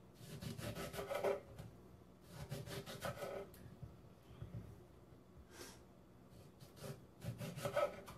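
Kitchen knife cutting a lemon into slices on a cutting board, heard as four short bouts of back-and-forth cutting strokes.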